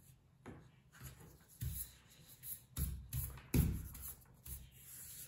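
A rubber eraser scrubbing pencil lines off drawing paper in a series of short rubbing strokes, then a hand sweeping the eraser crumbs across the sheet.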